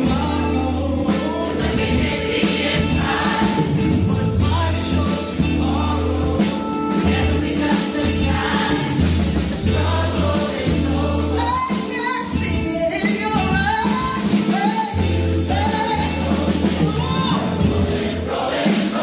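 A large choir singing with a live band: many voices carrying a gospel-style melody over a steady bass line and rhythm accompaniment.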